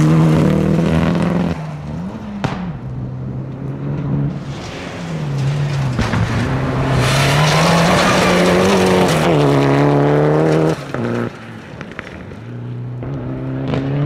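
Mitsubishi Lancer Evolution rally cars' turbocharged four-cylinder engines driven hard on gravel: revs climbing and dropping through gear changes as the cars power through corners. The loudest stretch builds steadily for about three seconds, then cuts off sharply at a shift about eleven seconds in, before the revs rise again near the end.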